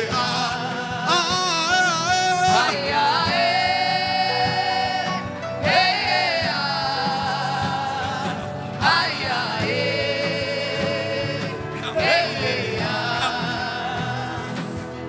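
Gospel worship music: a voice sings long held notes with a wavering vibrato, in phrases of about three seconds with short breaths between, over steady backing music.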